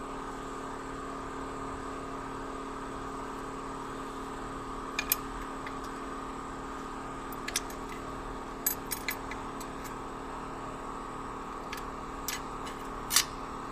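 Short, light metallic clicks and clinks, scattered irregularly and loudest near the end, as steel parts of an automatic transmission's clutch pack are handled. A steady electrical hum runs underneath.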